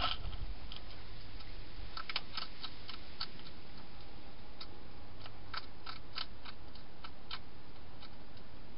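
Wild hedgehog chewing dry food inside a plastic feeding box: irregular crisp crunching clicks in short runs, starting about two seconds in and stopping near the end.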